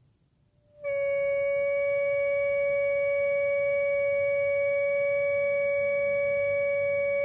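A steady high-pitched tone starts abruptly about a second in and holds at one pitch from a VW Golf 7 with its engine switched off. It is the abnormal noise the car makes after shutdown once the air conditioning has been run.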